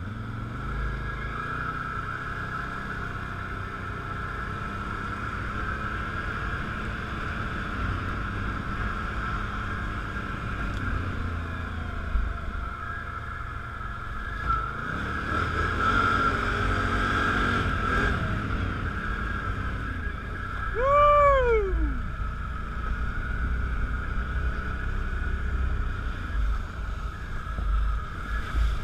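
ATV engine running under way on a dirt trail, a steady low rumble with a constant higher whine. About two-thirds of the way through, a brief tone swoops up and falls away.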